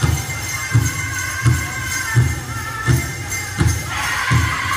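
Powwow drum group singing a chicken dance song: the big drum struck in a steady beat, about one and a half beats a second, under high-pitched singing that grows louder about four seconds in, with a jingling of bells.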